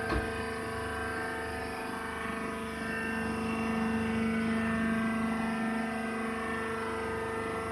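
Hydraulic baler's motor and hydraulic pump running with a steady, multi-tone hum; the drone swells and grows louder for a few seconds in the middle. A single short knock right at the start.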